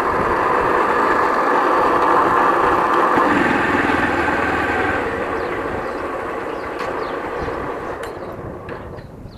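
2005 Honda CG 150 Titan motorcycle in gear with the clutch lever pulled, its engine's lower end giving off a steady whine; the owner traces the whine to a failed primary (clutch) shaft bearing. The sound fades away over the last few seconds.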